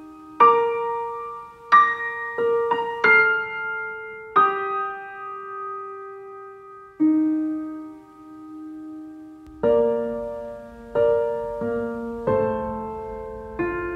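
Background piano music: slow, sparse notes and chords struck and left to ring and fade, with a lower accompaniment joining about two-thirds of the way in.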